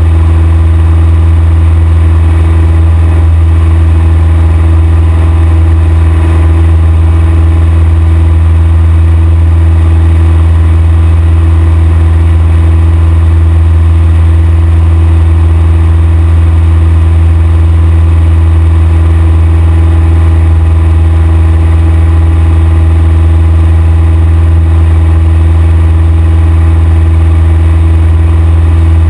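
Cessna 172's piston engine and propeller in steady cruise, heard from inside the cockpit as a loud, unchanging drone.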